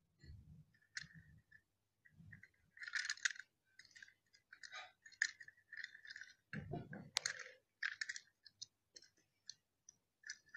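Faint clicks, taps and small clinks of a small toy train engine being handled and moved about, with a couple of duller knocks about seven seconds in.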